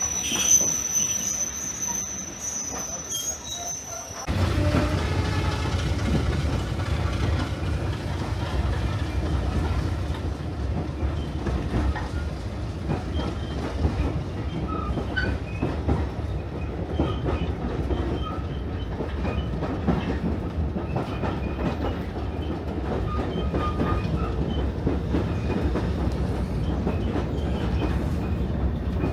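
A train alongside a platform with a high, steady squeal for the first few seconds. Then, from inside a moving passenger carriage, the steady, deep rumble of the wheels on the track, with light rattles and clicks.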